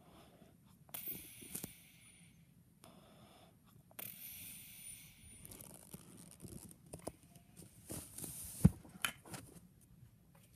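A sleeping baby's wheezy snoring breaths, hissy and recurring about every three seconds. A few sharp knocks and rustles come near the end, the loudest one short and sharp.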